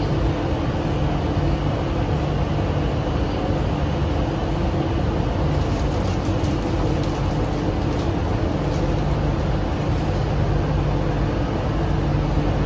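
Interior running noise of an MTR CRRC Qingdao Sifang Q-Train electric multiple unit on the move: a steady rumble of the car on the track with a constant low hum.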